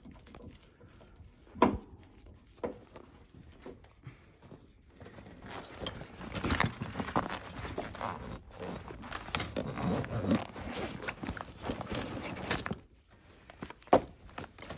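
Rummaging through a soft tool bag: rustling and the irregular clatter of hand tools being moved about, loudest in the middle, with a single sharp knock near the end.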